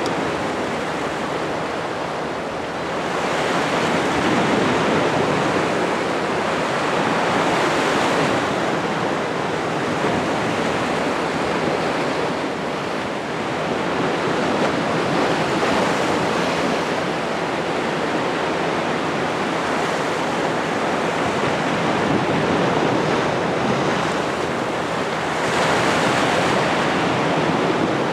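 Sea surf washing in against the shore, a steady rushing wash that swells louder with each incoming wave every several seconds.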